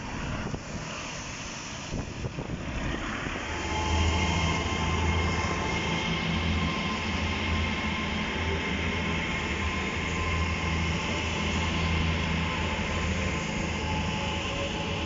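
LNER Azuma bi-mode train passing on diesel power: a steady low engine hum with a thin whine over it, starting about four seconds in. Before that, wind noise on the microphone.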